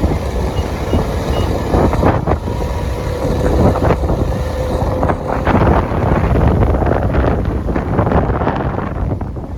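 Wind buffeting the microphone over a steady rushing noise, with scattered knocks from handling.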